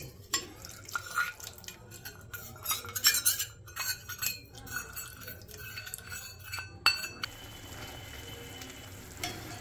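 A cooking utensil stirring soup in a pot, clinking and knocking against the sides, as cornflour slurry is stirred in to thicken it. After about seven seconds the clinking stops and a steady faint hiss remains.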